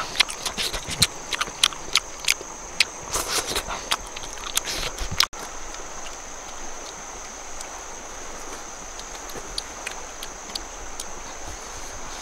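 Close-up chewing and lip-smacking of someone eating fish, a quick run of wet clicks and smacks. It cuts off abruptly about five seconds in, leaving a quieter steady outdoor hiss with a few faint ticks. A steady high whine runs under both parts.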